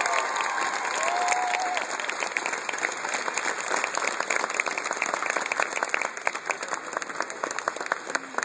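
Audience applauding, with a cheer or two in the first couple of seconds; the clapping thins out and gets quieter toward the end.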